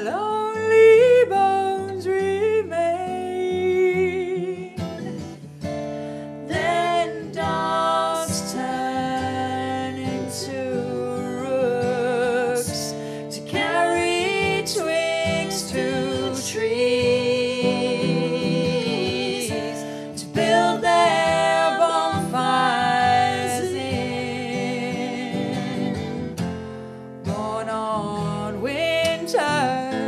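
A song: a woman singing over plucked acoustic guitar.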